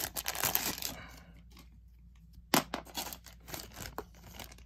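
Clear plastic packaging bags crinkling and rustling as they are handled. A dense rustle in the first second, a short lull, then a run of sharp crackles.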